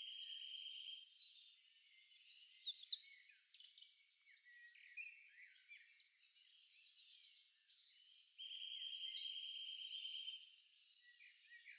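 Birdsong: many small birds chirping and twittering, with a steady buzzing trill at the start and again about eight and a half seconds in. The loudest are quick, sharp chirps about two to three seconds in and again about nine seconds in.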